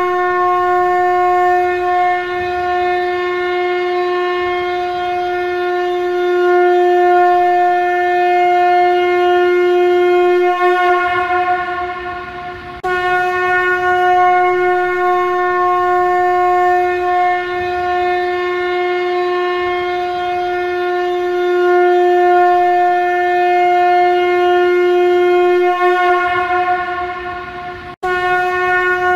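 Shankha conch shell trumpet blown in long, steady blasts on one held note with a bright, buzzy ring of overtones. One blast dies away about twelve seconds in, and the next begins abruptly and holds for about fifteen seconds before fading. A third starts just before the end.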